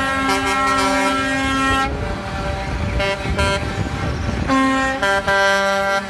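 Concrete mixer trucks sounding their horns: one long blast of about two seconds, then a low engine rumble, then two shorter blasts near the end.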